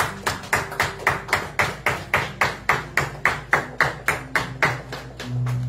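Rhythmic clapping in unison, hands striking together evenly at about four claps a second and growing weaker near the end, when a low steady tone comes in.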